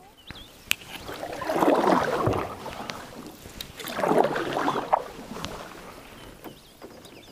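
Canoe paddle strokes through calm lake water: two strokes about two and a half seconds apart, each a swelling splash and gurgle, with a couple of sharp clicks.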